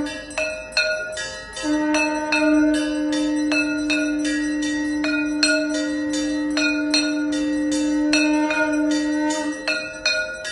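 Temple bells struck steadily during aarti, about two strikes a second, their ringing overlapping. A steady held low tone sounds beneath the bells, returning about two seconds in and fading near the end.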